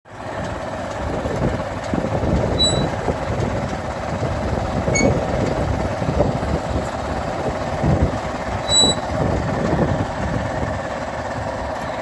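Tractor engine running steadily while pulling a rear-mounted inter-row weeder along crop rows, with irregular low knocks from the implement working the soil. Two short high-pitched tones sound, about three seconds in and again about six seconds later.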